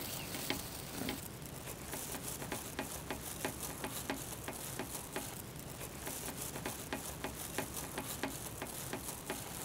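Cooking oil heating in a frying pan: a steady hiss dotted with small sharp crackling ticks, a few each second.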